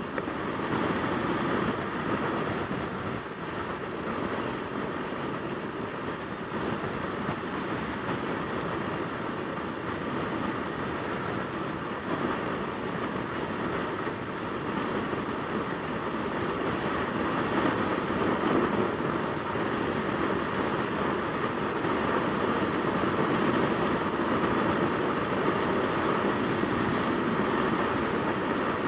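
Yamaha YZF600R Thundercat's inline-four engine running steadily at motorway cruising speed, mixed with rushing wind and road noise, with no gear changes or revving. It grows slightly louder about halfway through.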